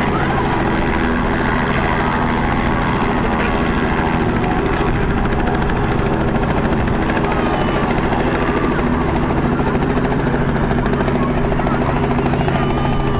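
Small two-bladed helicopter hovering low and settling onto its skids, then running on the ground with its rotor still turning: a loud, steady engine and rapid blade chop.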